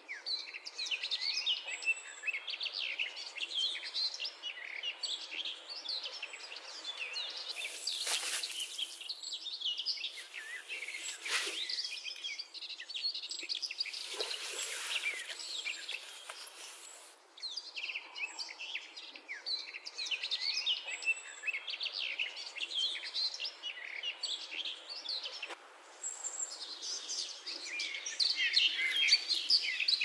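A chorus of songbirds, many overlapping chirps and trills, with two short stretches of hiss-like noise about a third and half of the way through.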